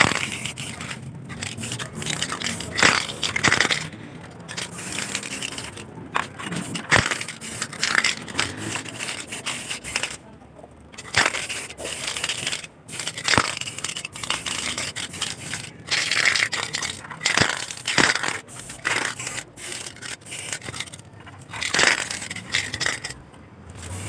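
Hand scraping and rubbing on the lantern's metal parts: irregular strokes of rough scratching, with occasional sharp clicks.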